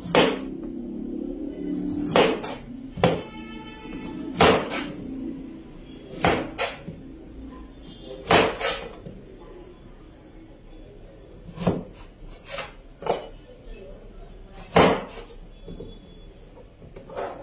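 Kitchen knife cutting down through a carrot onto a cutting board: about a dozen single chops, each a sharp knock, spaced irregularly a second or two apart, as the carrot is cut into julienne strips.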